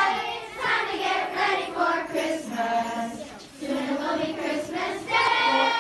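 A group of children singing a Christmas carol together, holding long sung notes.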